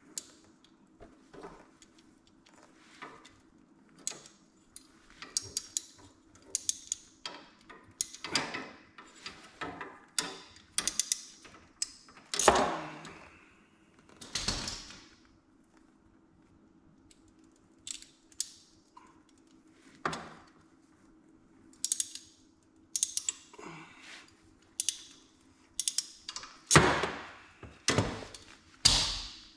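Irregular clicks, knocks and rattles of hand tools and small metal parts being handled while bolting up ATV wiring, with a few longer rasping or scraping sounds around the middle and near the end. A faint steady hum sits underneath.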